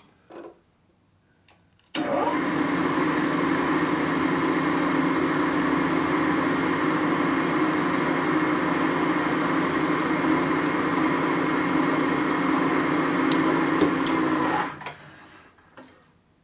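Milling machine spindle with a small drill bit in the chuck switched on about two seconds in, running at a steady speed with an even motor hum, then switched off near the end and winding down over about a second.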